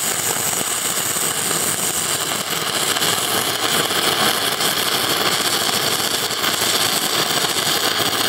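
Stick-welding arc of an E6013 electrode running a flat bead on steel: a steady, fast crackle and sizzle that holds even.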